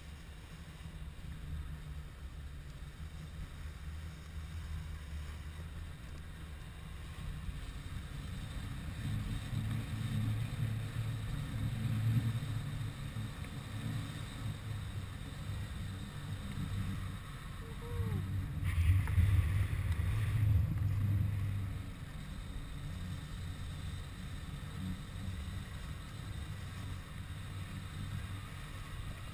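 Wind rushing over an action camera's microphone during a fast descent on snow, a steady low rumble with the slide over the snow underneath. It swells twice, the second time about two-thirds through, with a brief added hiss.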